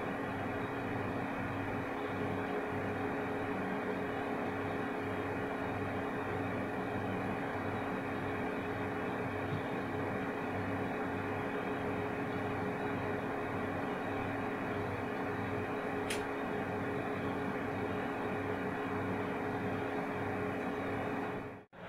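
Desktop PC's fans, including the be quiet! Pure Rock tower cooler's 120 mm fan, running steadily while the Ryzen CPU is under full rendering load: an even whir with a few steady hum tones. There is a faint click about 16 seconds in.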